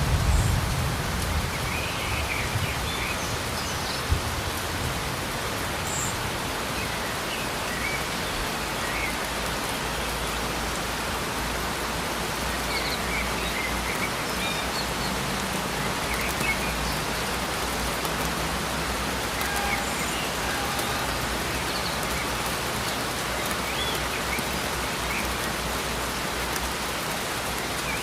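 Steady rain falling, an even hiss of drops on hard surfaces, with the low rumble of a thunder roll dying away in the first few seconds.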